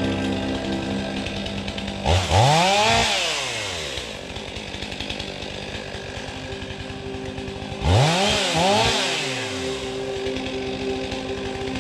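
Chainsaw revved twice, about two seconds in and again about eight seconds in, each time the pitch rising and then falling back.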